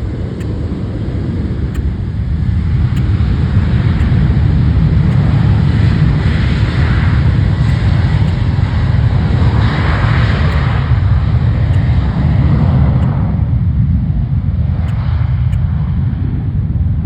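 Jet airliner's engines rumbling as it passes, building over the first few seconds, loudest in the middle and easing off near the end.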